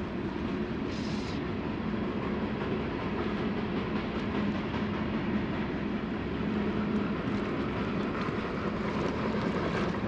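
Steady rush of flowing river water, even and unbroken.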